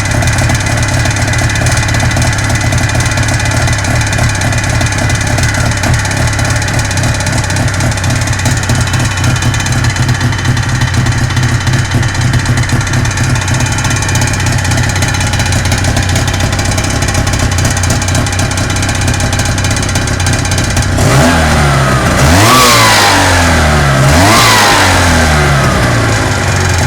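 A Taiga's engine running steadily at idle, carrying the extraneous noise that is being checked. About 21 s in it is revved up and let fall back, and again about 24 s in.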